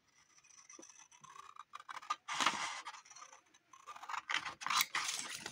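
Scissors cutting paper: a run of snips and blade strokes, louder about two seconds in and again over the last second and a half.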